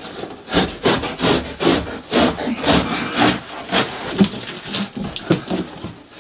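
A knife sawing through thick corrugated cardboard, in quick repeated rasping strokes, about two or three a second.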